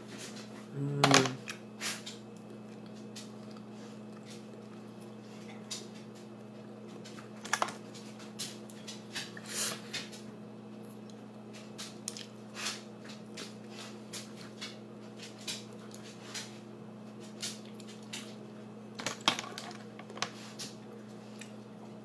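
Scattered sharp clicks and cracks of a cooked lobster's shell being broken and picked apart by hand with a shell cracker, over a steady low hum. A brief voiced sound about a second in is the loudest moment.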